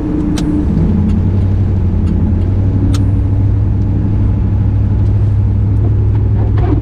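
1993 Chevrolet Camaro Z28's 5.7-litre LT1 V8 and road noise droning steadily while cruising, heard inside the closed cabin, with two faint ticks.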